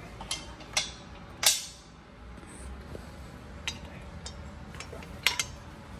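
Metal parts of a patient lift knocking and clinking together as the mast is worked into its base during assembly. The sharp clinks and taps come one at a time, loudest about one and a half seconds in, with a quick double clink near the end.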